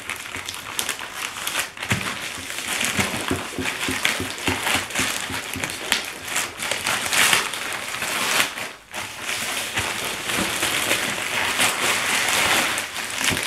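A FedEx plastic poly mailer being torn open and crumpled by hand: continuous crinkling and crackling of thin plastic, with a short break about nine seconds in. Near the end the bubble-wrapped parcel is pulled out of the torn mailer.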